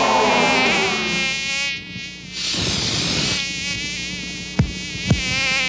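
Cartoon mosquito-like insect buzz, a wavering buzz with many overtones. A short hiss cuts in about two and a half seconds in, and two sharp clicks come near the end.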